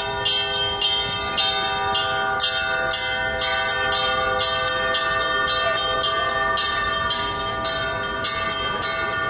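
Russian Orthodox church bells ringing: smaller bells struck in a quick, even pattern of about two strokes a second over the steady hum of larger bells.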